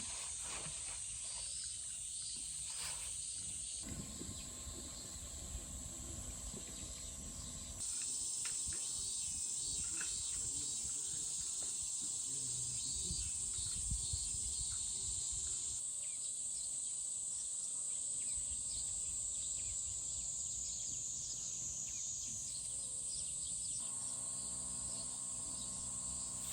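Insects chirring in a steady high-pitched chorus that shifts slightly in pitch and loudness a few times, over a faint low rumble.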